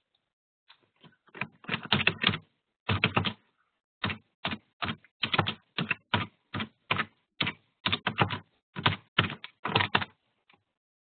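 Typing on a computer keyboard: irregular runs of keystrokes and single taps, heard thin over a web-conference audio line.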